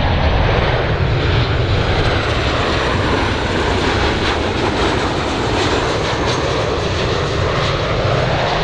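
Boeing 737-800 BBJ2's twin CFM56-7B turbofan engines at approach power as the jet comes in to land with its gear down: loud, steady jet noise with a faint high whine over it.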